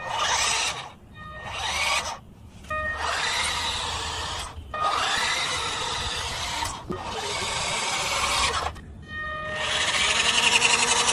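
Electric motor and gearbox of a six-wheeled RC army truck whining in repeated bursts of a second or two with short pauses between, the pitch rising as it speeds up. The motor runs steadily through the last second or so.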